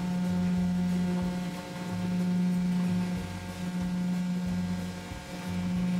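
Electric vibrating filter screen of a soy milk production line running, a steady machine hum with a deeper throb that cuts in and out every second or so as freshly ground soy milk is sieved.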